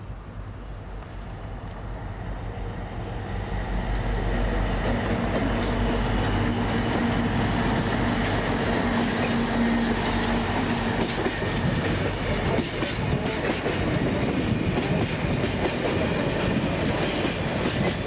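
A British Rail Class 60 diesel locomotive approaches and passes, its engine growing louder over the first few seconds with a steady low drone at its loudest around the middle. It is followed by a train of tank wagons rolling by, their wheels clicking over the rail joints.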